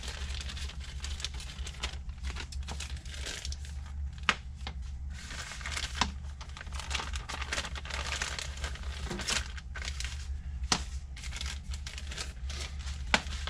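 A clear plastic parts bag crinkling and rustling as it is opened and handled, with a few sharp clicks, over a steady low hum.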